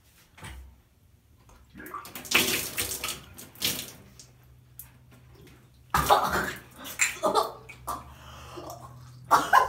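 A person drinking from a small bottle, with sloshing and splashing of liquid, then a sudden loud cry about six seconds in.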